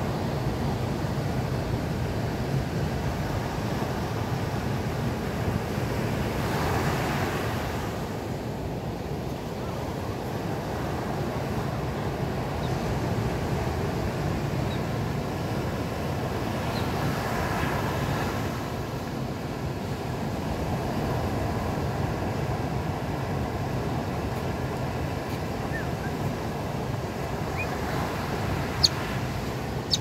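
Ocean surf breaking on a sandy beach: a steady rush of waves that swells as breakers come in, about seven seconds in and again at about eighteen, with a low rumble of wind. A brief high chirp near the end.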